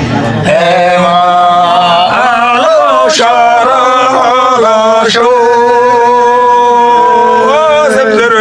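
Men singing a Yolmo (Hyolmo) folk song in long, drawn-out phrases, the held notes bending and wavering.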